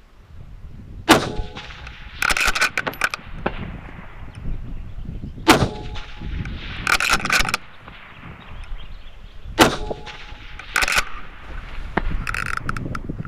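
Three rifle shots about four seconds apart, each with a sharp crack and a short echo. About a second after each shot comes a quick rattle of metallic clicks, and one more rattle follows near the end.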